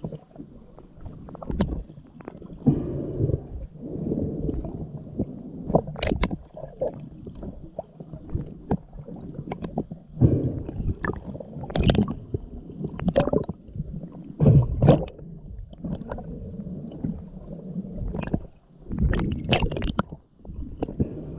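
Muffled underwater sloshing and gurgling as a snorkeler swims, with sharp knocks at irregular intervals.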